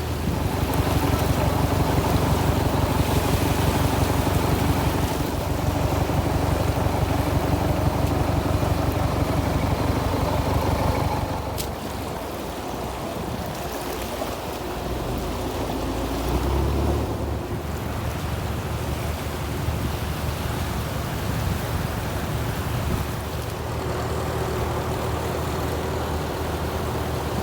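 A boat's engine running with a rapid, even beat, louder for the first eleven seconds or so and then dropping back, over wash of the sea.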